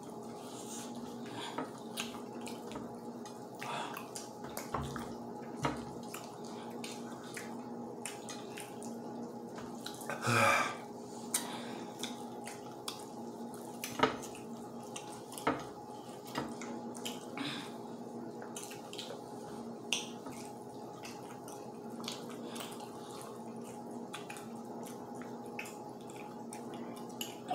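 Close-up eating sounds of people chewing fried chicken with their fingers and mouths: scattered wet smacks and clicks, with one louder, longer mouth sound about ten seconds in.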